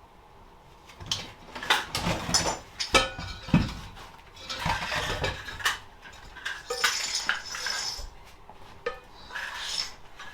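Metal clanking, clinking and rattling as a Suzuki GSX-R 400 motorcycle engine is heaved and knocked against a lawn mower's cut-open metal frame. The knocks come in irregular clusters starting about a second in, several with a short metallic ring.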